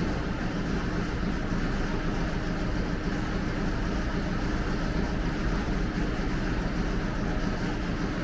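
A machine's steady drone with a low hum, unchanging throughout.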